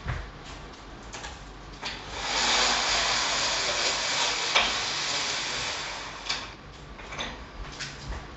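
Roller blinds being raised, the fabric winding up onto the roller tube: a steady rushing rattle for about four seconds with a sharp click near the middle, then a few light knocks.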